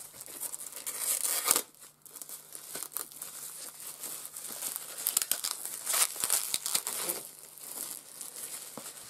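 Plastic shrink-wrap being torn and crumpled off a padded Blu-ray mediabook: an irregular run of crinkling and crackling, loudest about a second in and again around six seconds.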